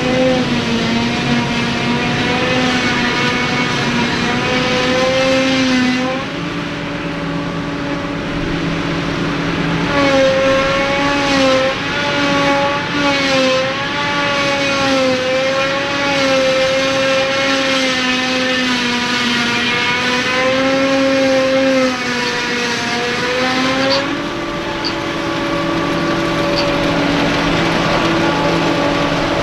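CLAAS Jaguar 940 self-propelled forage harvester working under load while chopping grass: a loud machine whine, with several tones whose pitch wavers slightly with the load. The sound changes abruptly about 6, 10 and 24 seconds in.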